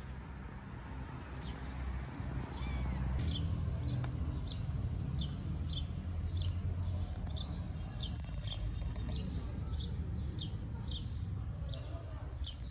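Kittens squeaking, short high mews repeating about twice a second from a few seconds in, over a low steady rumble.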